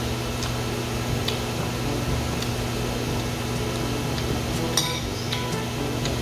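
A metal fork clinking and scraping against a ceramic plate of noodles a few separate times, the loudest about five seconds in, over a steady low hum.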